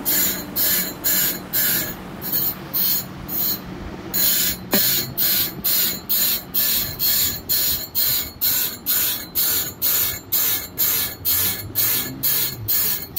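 Bench grinder wheel grinding the teeth of a steel band saw blade, one short rasping hiss per tooth as the blade is fed along, about two and a half strokes a second, with a brief pause about four seconds in.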